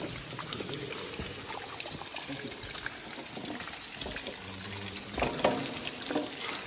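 Water trickling and running over a wet cave floor, with a sharper knock about five seconds in.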